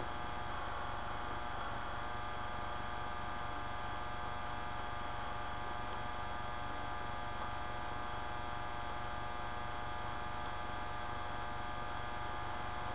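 Steady electrical hum and buzz: mains hum in the recording, unchanging throughout.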